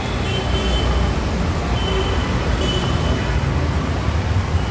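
Steady road traffic noise with a deep low rumble.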